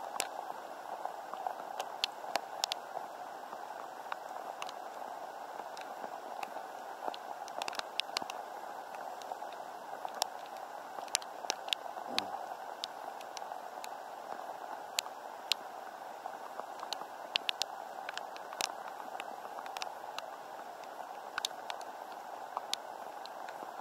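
Steady rain falling on open water, a constant hiss, with scattered sharp taps of drops striking close by.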